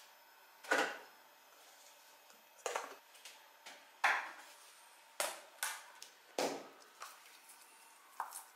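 Kitchen clatter as dishes, pans and utensils are picked up and set down on a counter: about a dozen separate, irregular knocks and clinks.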